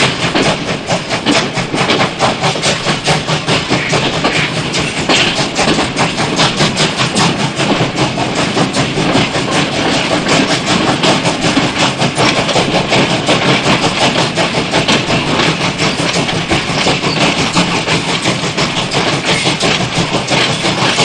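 Steady running noise of a moving train, a continuous rumble with a rapid clatter.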